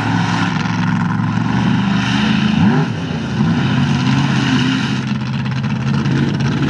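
Mega mud truck's supercharged big-block Chevy engine running, with a quick rev up and back down about two and a half seconds in.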